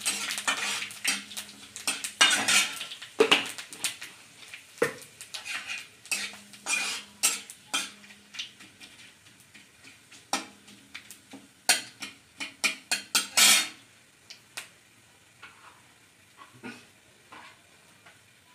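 Metal spatula scraping and clinking against a metal kadai while stirring whole spices frying in hot mustard oil, with a light sizzle underneath. The strokes come thick and fast at first, then thin out to a few scattered taps over the last few seconds.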